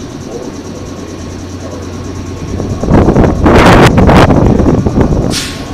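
A 115-series electric train standing at the platform hums steadily. About three seconds in, a loud rushing noise swells for roughly two seconds and ends in a short, sharp hiss.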